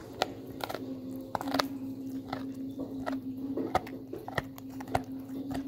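A dog gnawing on a chew bone close to the microphone: irregular sharp clicks and crunches of teeth on the bone.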